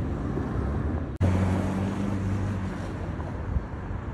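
Rumbling wind noise on the microphone, cut off abruptly about a second in by the steady low hum of a car driving along a highway, heard from inside the car.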